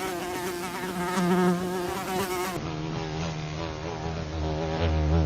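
A fly buzzing, its drone wavering up and down in pitch. About two and a half seconds in it changes abruptly to a different, duller fly buzz with a stronger low hum.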